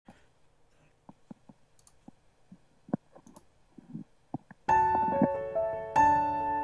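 A few faint scattered clicks, then intro music starts suddenly about two-thirds of the way through with sustained piano-like keyboard chords, a new chord struck about a second later.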